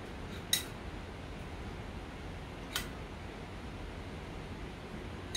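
Two light clinks of a kitchen utensil against a dish, about two seconds apart, each ringing briefly, over a steady background hiss.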